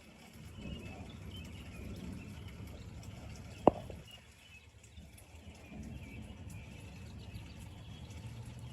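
Thunder rumbling low and rolling, swelling and fading, with faint high chirps from animals above it and one sharp click about three and a half seconds in.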